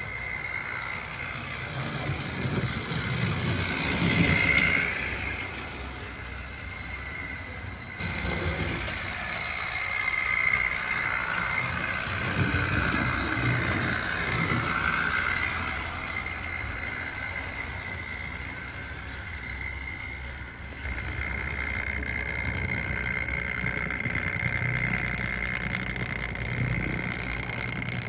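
OO gauge model Bulleid light pacific locomotive running on its newly replaced motor: a steady high motor whine over the rumble of wheels on the track, a little noisy. It swells louder each time the locomotive passes close.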